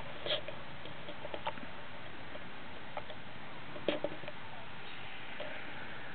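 Young puppies giving a few brief, scattered squeaks over a steady background hiss, the loudest a quick pair about four seconds in.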